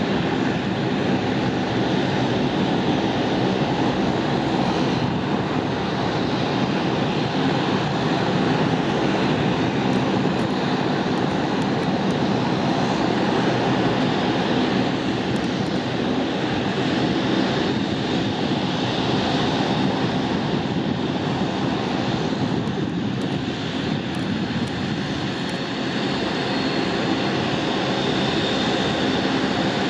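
Aircraft engines running steadily: a continuous loud drone with faint steady whining tones and no marked rise or fall.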